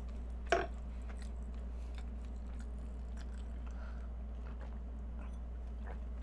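Close-miked eating and drinking sounds: a short, sharp mouth or glass sound about half a second in, then faint chewing and sips of milk, over a steady low hum.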